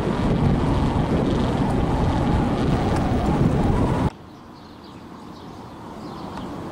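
Wind buffeting the camera microphone, a loud rumbling that cuts off abruptly about four seconds in, leaving a much quieter outdoor background.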